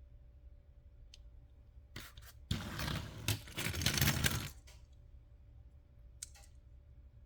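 Handling noise: a scraping, rustling sound lasting about two seconds in the middle, with a few sharp clicks shortly before and a couple more near the end.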